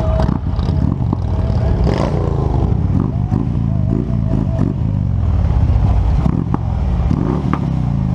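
Harley-Davidson V-twin motorcycle engine running at low speed, its pitch rising and falling as the throttle is opened and closed, with a few sharp knocks.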